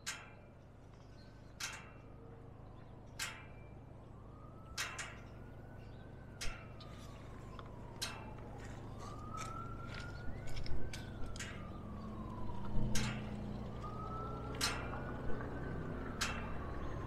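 A siren wailing slowly up and down in the distance, over the low steady hum of idling diesel locomotives, with sharp clicks about every second and a half.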